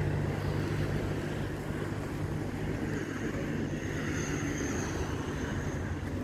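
Steady low engine drone under a constant outdoor rush of noise, easing a little after the first couple of seconds.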